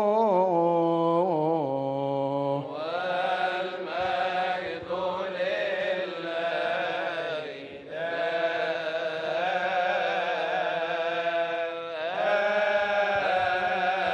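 A bishop's solo voice chanting the melismatic close of the Arabic Gospel reading. About three seconds in, a choir of Coptic deacons takes over and chants a response together in unison.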